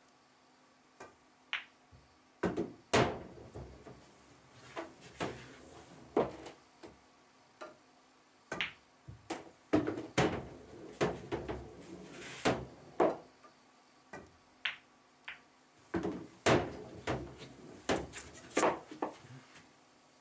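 Pool shots: the cue tip striking the cue ball, balls clacking against each other and thudding into the cushions, and potted balls dropping into the pockets. It comes as a series of sharp clicks and knocks in several irregular clusters, some followed by a short low knocking.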